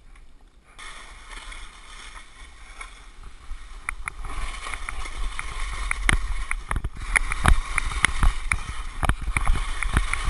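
Skis hissing and scraping over snow on a downhill run. The sound grows louder about four seconds in as the skier gets going, with frequent sharp clicks and knocks of skis and poles over a low rumble.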